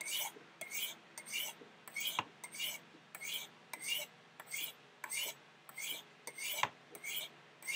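Steel knife blade swiped down the fine white ceramic rods of a Spyderco Sharpmaker, alternating sides, each stroke a short scraping hiss, about two a second, with two sharper clicks among them. These are touch-up honing strokes that put a fine edge on the blade.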